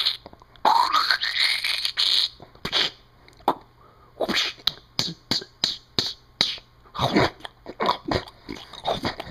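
A person making sound effects with their mouth: a rising, whistling whoosh about half a second in, then an uneven run of short, sharp pops and clicks.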